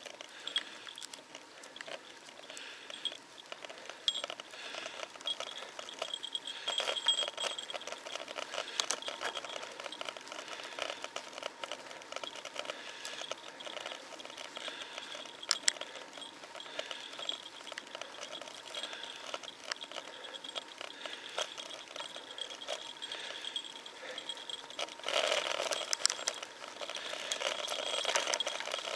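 Bicycle riding on asphalt, picked up through a handlebar-mounted camera: a light, irregular crackle and rattle of tyre and road vibration. It grows louder and rougher a little before the end.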